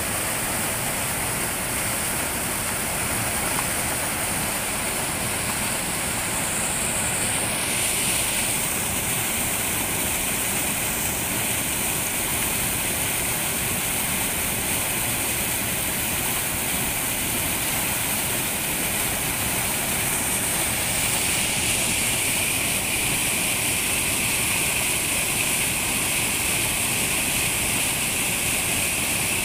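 White water of a rocky mountain stream rushing over and between boulders: a steady, unbroken rush of water.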